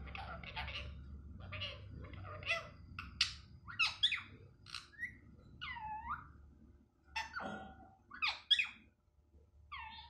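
Indian ringneck parrot giving a run of short, sharp calls and chatter, with two whistled notes that dip and rise about six seconds in.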